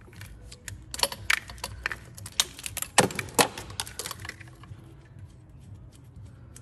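Irregular plastic clicks and rattles of wiring-harness connectors and clips being worked free by hand, busiest between about one and four and a half seconds in, then fainter.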